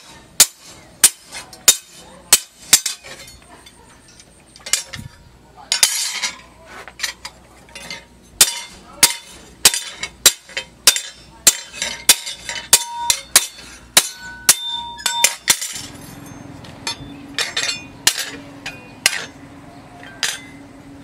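Hammer blows on a steel plough-disc blank lying on a steel anvil: sharp, ringing metal-on-metal strikes at about two a second, in runs with pauses between. Near the end a steady low hum comes in and the blows thin out.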